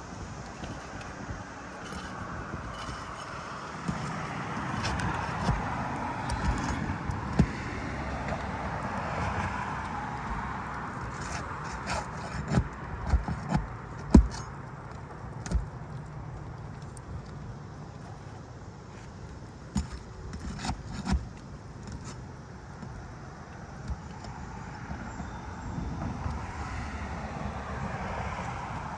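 Asphalt roof shingles being lifted and their seals broken, with scattered scrapes and sharp knocks, the loudest about halfway through, over a steady background of passing traffic.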